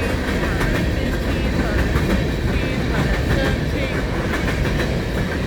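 Empty coal hopper cars of a long freight train rolling past: a steady rumble, with wheels clicking over rail joints and a few short high squeaks.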